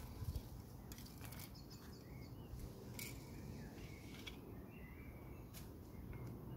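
Quiet outdoor garden ambience with faint short bird chirps, and a few soft clicks and scrapes from hands firming soil around a freshly planted stem.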